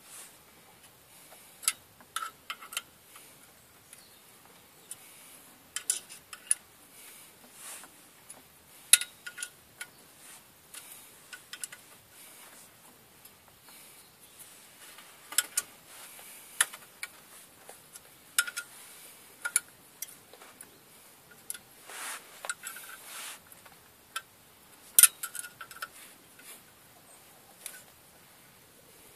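Irregular metallic clicks and clinks of hand tools on a car's clutch pressure plate and its bolts, some with a brief ringing note, as the plate is bolted to the flywheel.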